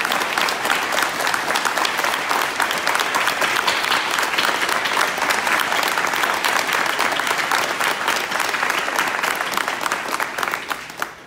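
Audience applauding, many people clapping at once, then dying away near the end.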